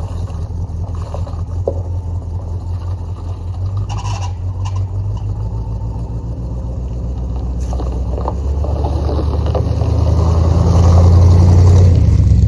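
Truck engine and road noise while driving: a steady low drone that grows louder over the last few seconds.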